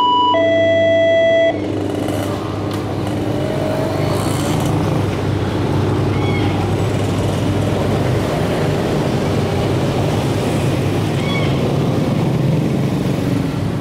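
Railway level-crossing alarm sounding two alternating electronic tones, which stop about a second and a half in. Then motorcycles and cars run steadily across the crossing.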